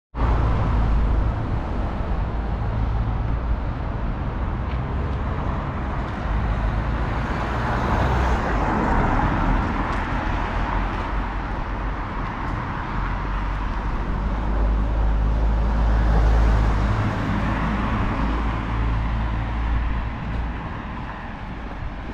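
Town street ambience: steady traffic noise with a heavy low rumble, swelling around a third of the way in and again about three quarters through as vehicles go by.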